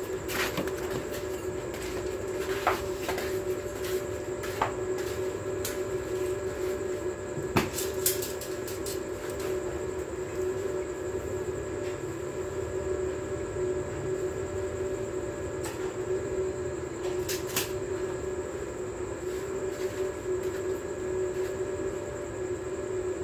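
Arc welding on steel bars: a steady electric hum with a crackling arc and scattered sharp pops.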